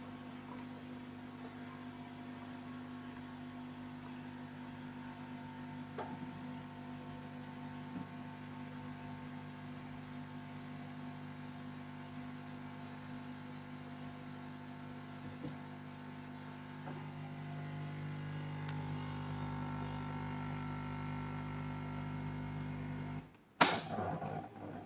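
Bean-to-cup coffee vending machine running through a brew cycle: a steady motor hum with a couple of single clicks, growing louder about two-thirds of the way through. Near the end it cuts off, followed by a sharp knock.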